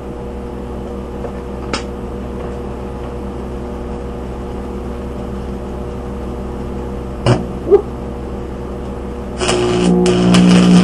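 Steady hum with a few light knocks. About nine and a half seconds in, a stick welder's arc is struck and a loud crackling, buzzing arc begins: 6011 rod being burned on the Hobart Stickmate 230 to weld the wheel hub back to its spindle.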